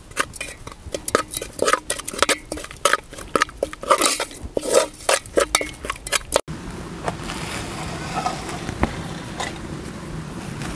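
Metal spoon stirring spice paste in an aluminium pot, clinking rapidly and repeatedly against the pot's sides. After about six and a half seconds the clinking stops and a steadier, softer noise takes over.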